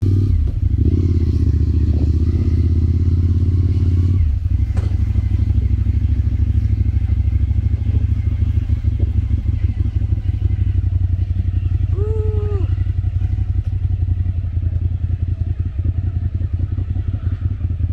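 Motorcycle engine running steadily while being ridden, its note changing about four seconds in.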